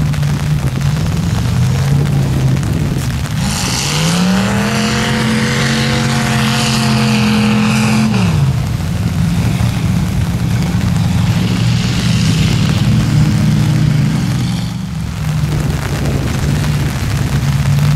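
Big engine of a mud-bogging truck running hard under load in the mud. About four seconds in it revs up, holds a steady high pitch for about four seconds, then drops back.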